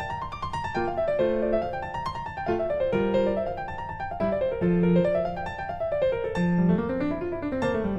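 Background piano music playing flowing arpeggios that rise and fall.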